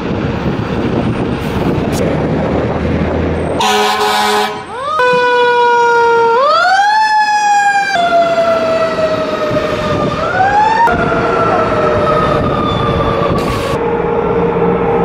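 Fire truck responding: a truck engine rumble, a short air-horn blast about four seconds in, then a siren that rises quickly and falls slowly in pitch, winding up again twice.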